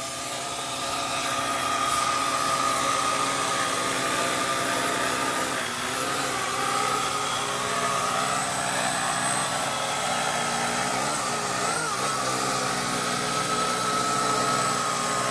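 Vivitar Skyview quadcopter's four propeller motors whining steadily as it hovers low. The pitch dips and wavers briefly about six seconds in and again a few seconds later as the motor speed changes.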